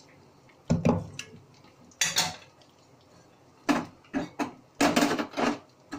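Steel cooking pots and a metal spoon clanking and scraping against each other on a gas stove: a run of short, sharp metal clatters, some ringing briefly.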